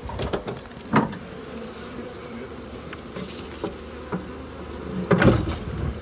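A mass of honeybees buzzing steadily, with a sharp knock about a second in and a louder clatter of knocks near the end.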